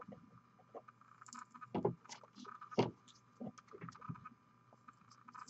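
Irregular small knocks and clicks of hands handling small hobby items, the two loudest about two and three seconds in, over a steady faint hum.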